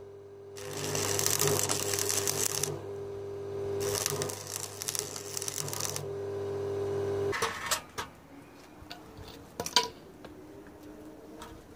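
Electric arc welding on steel: two runs of dense crackling and sizzling over a steady electrical hum. About seven seconds in the arc and the hum stop, followed by a few sharp metallic clicks.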